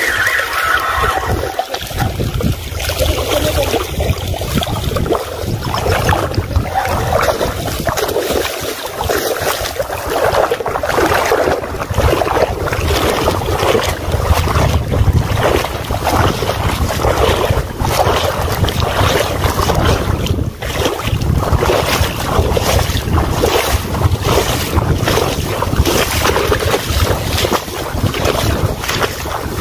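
Wind buffeting the microphone: a loud, continuous rumble that swells and falls irregularly in gusts.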